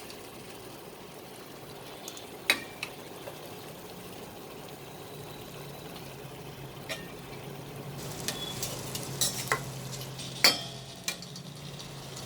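Chicken pieces frying in oil and curry masala in a pressure cooker, with a steady sizzle. A utensil knocks and scrapes against the metal cooker about eight times as the chicken is stirred, mostly in the second half.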